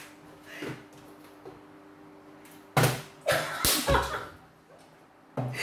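Plastic water bottle flipped onto a table: a sharp knock about three seconds in as it lands, then a few lighter knocks as it falls over onto its side.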